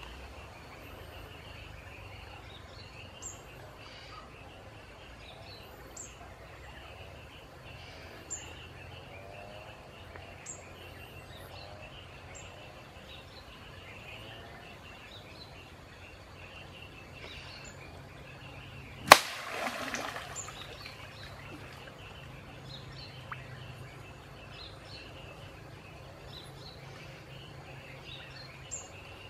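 Steady insect drone with short, high bird chirps every few seconds over a jungle river. About two-thirds through, a loud sharp slap and a second or so of splashing as a wooden spear strikes the water.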